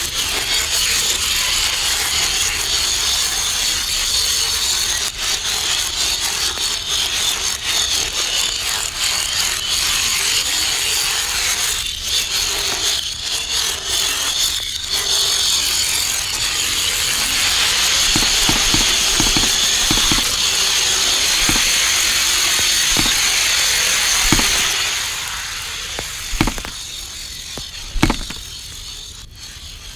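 A domino chain reaction: a fast, dense clatter of dominoes knocking over one another. Past the middle it gives way to separate, heavier thuds that come further and further apart, ending in a few loud single thumps as larger dominoes topple.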